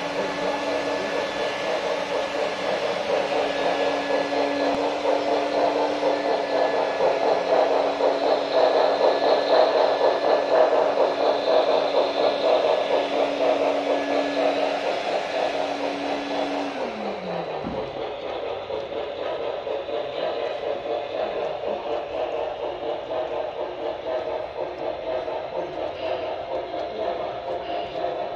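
Model freight train rolling past: metal wheels running over the track in a fast, dense clicking rhythm that grows louder, then eases off as the cars pass. A steady hum runs beneath it, glides down in pitch and stops about seventeen seconds in.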